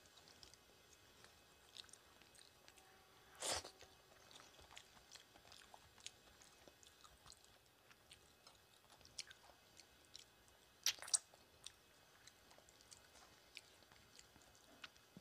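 Quiet close-up eating sounds of rice and curry eaten by hand: soft wet chewing and small mouth clicks and smacks, with a louder brief noise about three and a half seconds in and two sharp clicks in quick succession around eleven seconds.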